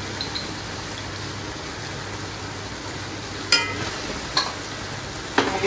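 Chicken and tomato masala frying in a wok with a steady sizzle. Three short clinks ring out about three and a half, four and a half and five and a half seconds in.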